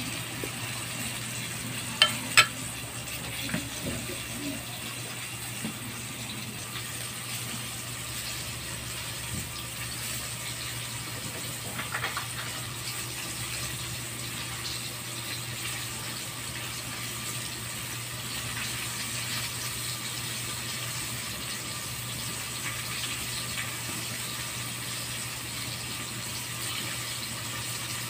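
Flour-coated fish pieces frying in hot cooking oil in a wok, a steady sizzle. Two sharp clicks come about two seconds in.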